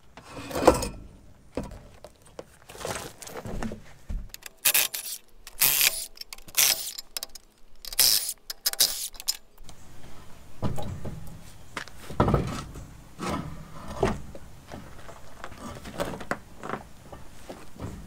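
Knocks, clanks and scrapes from a heavy truck tire and steel rim being worked off a spoke-wheel hub and rolled away, with a busy run of short, sharp metallic noises in the middle.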